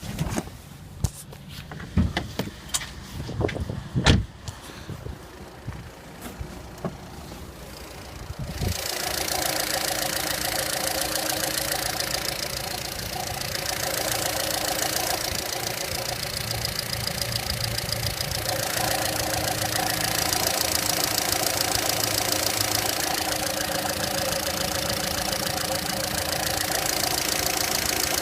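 A few sharp clicks and knocks, then about a third of the way in a VW Polo Sedan's 1.6 CWVA four-cylinder petrol engine starts and idles steadily. The idle carries the extraneous rustling, growling noise that shows up at about 800 rpm.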